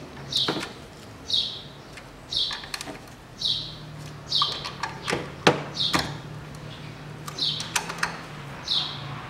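A bird chirping about once a second, over sharp metal clicks and taps of a ratchet wrench snugging down the ignition coil bolts. The loudest click comes about five and a half seconds in.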